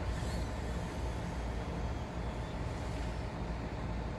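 Steady low rumble of road traffic, a vehicle engine running.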